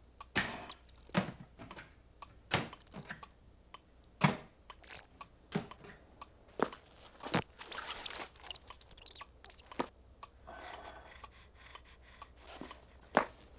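Cartoon sound effects for a small bug scuttling across a rug: uneven, sharp little clicks and crunchy taps, with a couple of short scratchy rustles in the second half.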